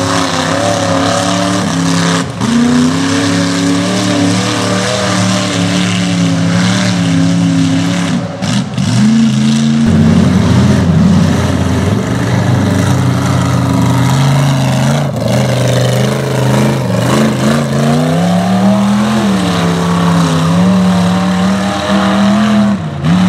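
Chevy mega truck's engine revving hard while churning through mud, its pitch rising and falling repeatedly as the throttle is worked, over a steady wash of noise.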